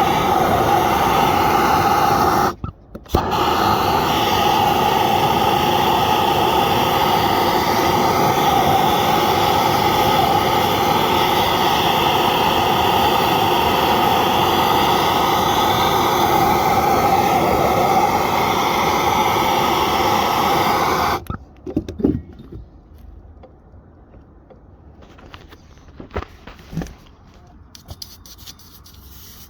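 Gas blowtorch burning steadily, heating a copper pipe joint for soldering, with a brief break about two and a half seconds in. The flame cuts off suddenly near the end, followed by light knocks and rubbing.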